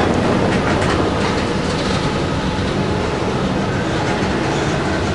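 Coal hopper wagons of a freight train rolling past close by: a steady rumble of steel wheels on rail with occasional clacks.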